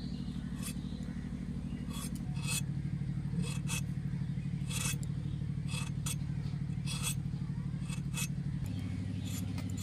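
Pointed gourd skin being shaved off against the curved iron blade of a boti: short rasping scrapes, about a dozen at an uneven pace. Under them runs a steady low engine-like hum that shifts pitch twice.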